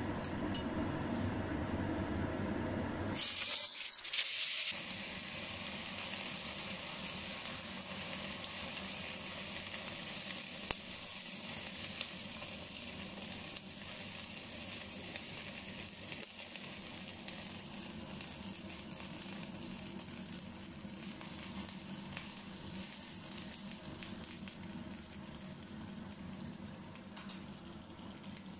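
Boiled pork dumplings hitting a hot frying pan: a sudden loud sizzle about three seconds in, after a low hum. Then a steady sizzle slowly fades as they are moved about with a wooden spatula.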